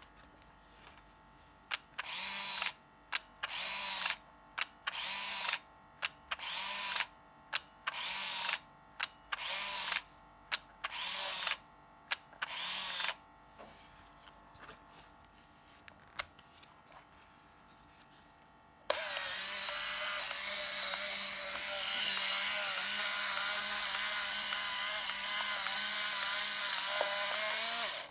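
Samsung Fino 30 DLX 35mm compact film camera's built-in motor: about ten times in a row a click is followed by a short whir of about half a second, the shutter firing and the film-advance motor winding on. After a pause the motor whirs steadily for about nine seconds and then stops suddenly.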